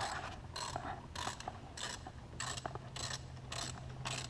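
Hand ratchet wrench clicking in short strokes, about two a second, backing out a fastener, over a faint steady hum.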